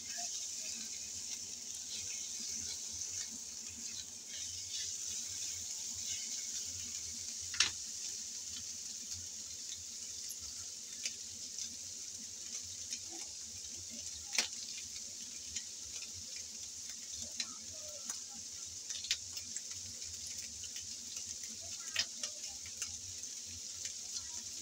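Ham and carrot strips frying in oil in a nonstick pan: a steady sizzle with occasional sharp pops and crackles.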